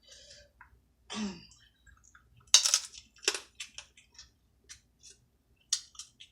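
Crab shell being cracked and picked apart by hand: a string of sharp cracks and clicks, the loudest about two and a half seconds in.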